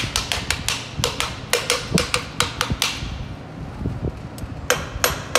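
Piston tapped down through a piston ring compressor into the cylinder bore of a Toyota Land Cruiser engine block with a hammer handle. It is a run of sharp metallic taps, about four a second with a slight ring, then a pause of a second or so, then steady taps again about three a second.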